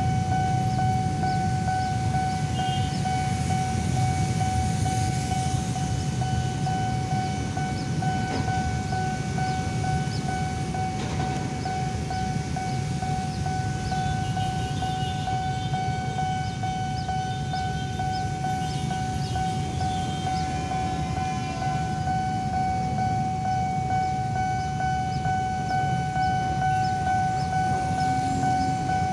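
Level-crossing warning alarm sounding one unbroken high tone, over the low rumble of a train and road traffic.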